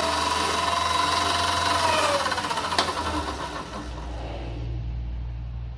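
Vevor MX-8x14 mini lathe running with a high howling whine from its brushed DC motor, which the owner takes for a sign of the motor failing. About two seconds in the whine falls in pitch, there is a sharp click, and the machine winds down, fading to a low hum.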